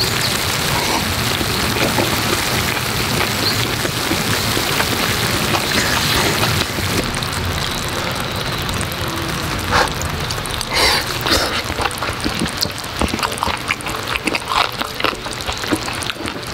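Spicy bean-sprout bulgogi sizzling on a hot cast-iron cauldron-lid griddle: a dense, steady hiss that thins out about halfway into scattered crackles and pops.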